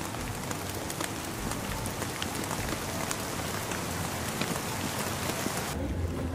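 Rain falling steadily: a dense hiss of rain on surfaces, speckled with the ticks of single drops. It cuts off abruptly shortly before the end.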